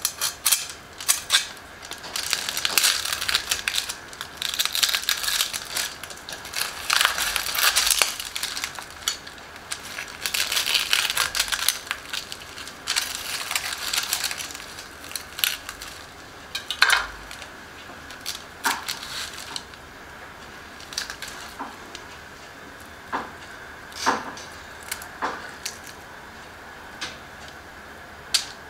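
Crisp, deep-fried skin of a pork leg (crispy pata) crunching and crackling as a knife cuts through it: a dense run of crunching for about the first fifteen seconds, then scattered single cracks as the skin is broken and pulled apart.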